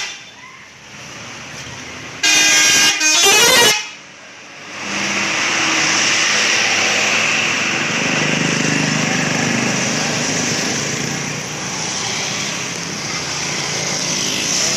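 Telolet horn of a 57 Trans intercity bus: a multi-tone musical air horn sounding for about a second and a half, starting about two seconds in, its notes changing partway through. Then the bus's engine and road noise swell and run on steadily.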